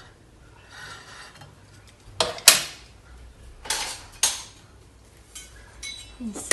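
A few sharp clinks and knocks of kitchenware as a plate is set down beside the stove and utensils are handled: two loud ones close together about two seconds in, two more a second or two later, then a few light taps near the end.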